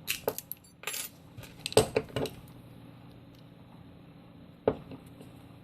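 Metal lock-picking tools, a pick and a tension wrench, clicking and rattling against a steel padlock as they are worked in the keyway after the pins are let go to reset: a quick cluster of clinks, then a single click near the end.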